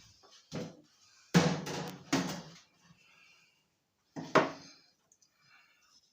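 Sheet-metal microwave casing being pulled free and handled: a few metallic knocks and clatters, the loudest about a second and a half in and another sharp one about four seconds in.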